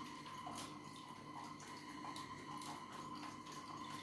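Cooked black grape mash pressed with a wooden spoon in a plastic strainer, the juice dripping and trickling faintly into a steel pot, with scattered small clicks, over a faint steady hum. The juice is being separated from the pulp.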